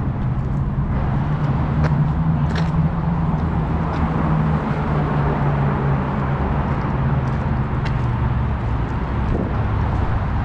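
Steady low engine hum of road traffic over a wash of city noise. It swells about a second in and eases off near the end, with a few faint clicks.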